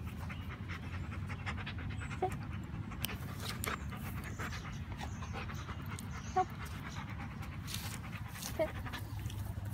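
A dog panting with its mouth open, close to the microphone, with a few brief short sounds in between.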